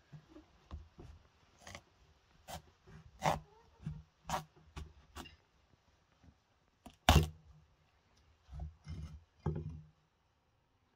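A knife working through the hard rind of a large pumpkin on a wooden stump: a string of irregular cracks and knocks as the blade cuts and the pumpkin is split in two. The loudest knock comes about seven seconds in, with a few more near the end.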